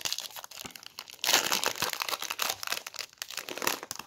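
A foil trading-card pack being torn open by hand, its wrapper crinkling and crackling, loudest in a burst of tearing about a second in.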